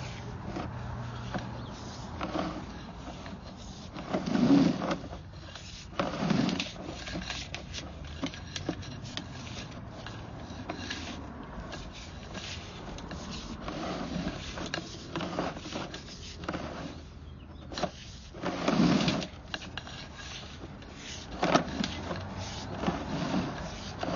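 Scraping and rubbing with many small clicks and a few louder dull thumps, as a sewer inspection camera's push cable is fed down the pipe.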